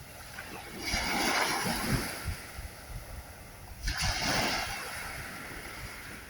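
Ocean waves breaking on a shore: two surges, about a second in and about four seconds in, each washing in loudly and then fading back.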